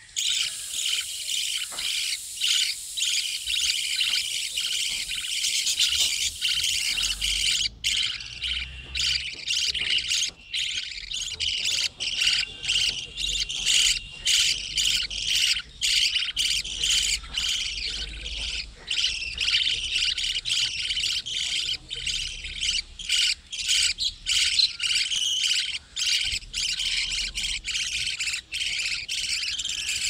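A colony of budgerigars chattering, with many short calls overlapping without a break.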